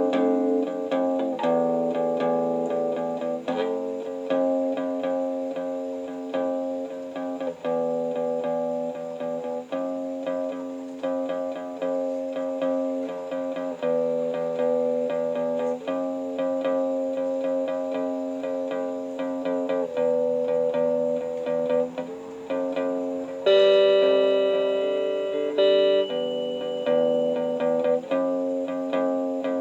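Guitar played through a Boss compressor pedal: held chords that change about every two seconds, each ringing on with long sustain. A louder, brighter strum comes about two-thirds of the way through.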